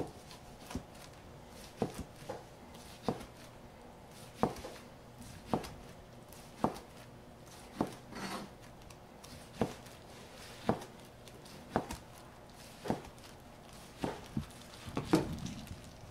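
Chef's knife slicing a gimbap roll into rounds, each cut ending in a sharp knock of the blade on the cutting board, about one a second. A louder, rougher knock comes near the end.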